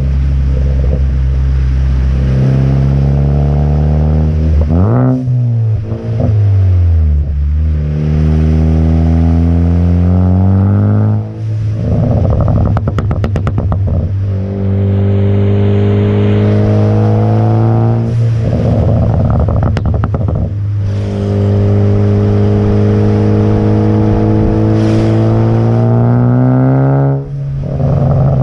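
Car engine through an AWE Track exhaust, pulling through the gears: the note climbs, then drops with a brief break at each shift, several times over. Twice it breaks into a rapid run of exhaust crackles and pops off the throttle, from the crackle tune.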